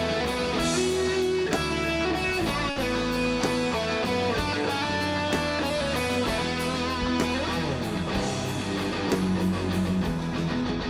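A live rock band playing the instrumental intro of a song, led by guitars over bass and drums.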